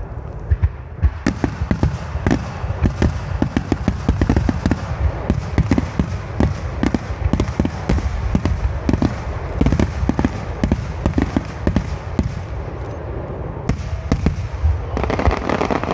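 Aerial fireworks shells bursting in rapid succession: many sharp booms and cracks, several a second, over a continuous low rumble of the display.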